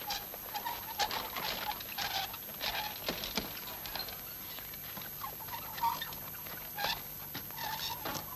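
Small animals moving about: brief, irregular squeaks and chirps among light pattering clicks.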